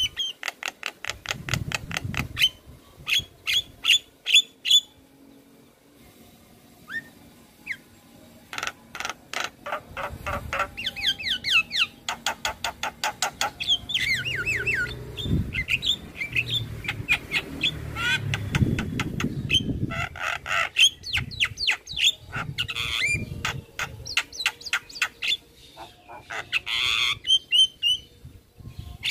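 Javan myna (jalak kebo) in full song: a long, varied chatter of fast clicking runs and rattles, squawks and short whistled glides, coming in bursts, with a quieter stretch about five seconds in.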